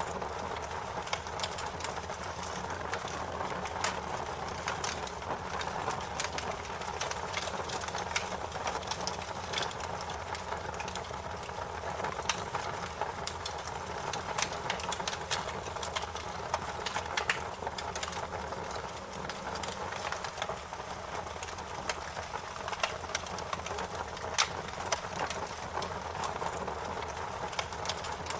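Fire crackling: a steady low rush of flame with frequent, irregularly spaced sharp pops and snaps.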